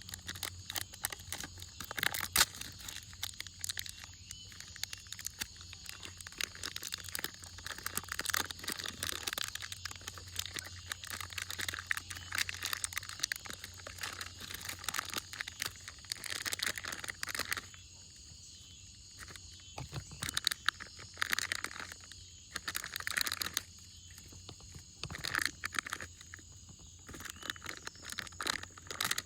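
Butter slime being squished and poked by hand: dense runs of small clicks and crackles, broken by a few short pauses.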